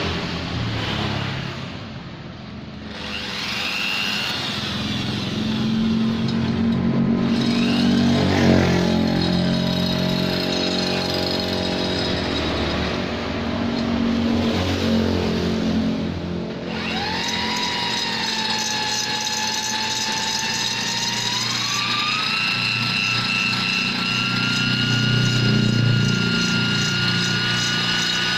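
Rotary grinder with a carbide tuner burr grinding out the ports of a Vespa two-stroke cylinder, its whine rising and falling as the burr bites into the metal and frees up. In the second half a steady whine climbs in pitch in two steps.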